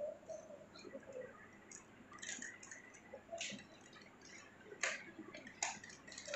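Rubik's Cube layers being turned by hand: faint, irregular plastic clicks, a few each second.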